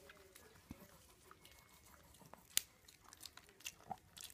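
Chihuahua chewing a small dog biscuit: faint, scattered crunches, with one sharper crack about two and a half seconds in and a few more near the end.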